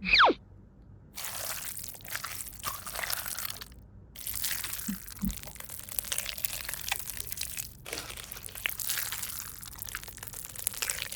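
Slime being squished and pulled by hand, with a wet, crunchy crackling that comes in three long stretches broken by short pauses. It opens with a brief falling whistle sound effect.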